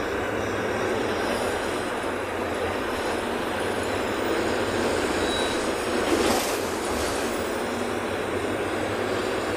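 City bus heard from inside the cabin while driving: steady engine and road noise, with a brief louder rush of noise about six seconds in.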